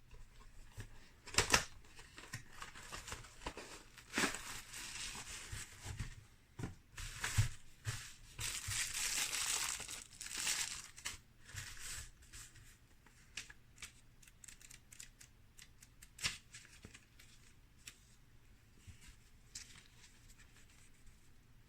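Packaging being handled and opened: crinkling and tearing with scattered sharp clicks and taps, busiest in the first half, then only occasional clicks.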